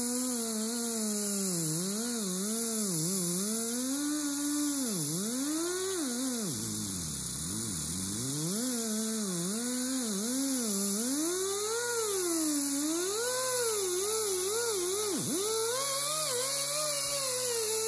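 Die grinder spinning a wool buffing pad charged with jeweler's rouge against the steel face of a body hammer, polishing it. Its whine rises and falls in pitch continually, dipping lowest about seven seconds in, over a steady hiss.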